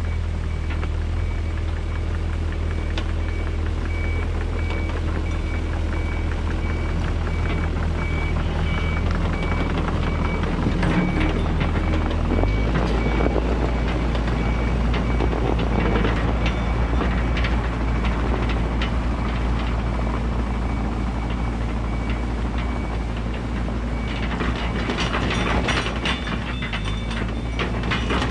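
Mini excavator's diesel engine running under load as it pushes dirt with its dozer blade and tracks across the ground. A travel alarm beeps steadily through the first dozen seconds. About halfway the engine note shifts lower, and near the end there is a run of metallic clanking and rattling.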